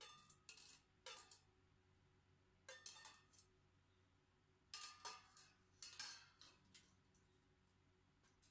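Faint rattling and clinking of dried mussels and peanuts knocking against a clear container as it is tipped and shaken out into a steel pot, in three short clusters of clicks.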